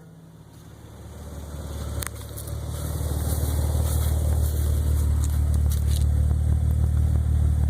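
Nissan 300ZX twin-turbo V6 idling through a Borla performance exhaust, a steady, low, boomy drone. It swells louder over the first three seconds, then holds level.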